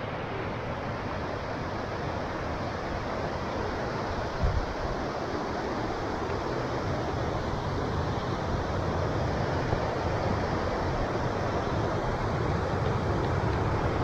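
Steady rush of a fast-flowing upland river tumbling over rocks, growing slightly louder, with one short low bump on the microphone about four seconds in.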